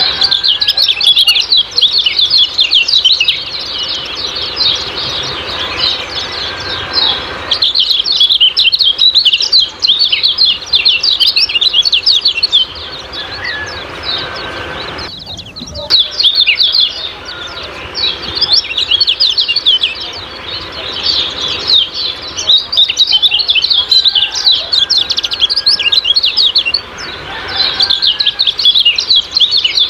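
Kecial kuning birds giving their rapid, high 'ciak-ciak' chirping song in bouts of several seconds, broken by short pauses.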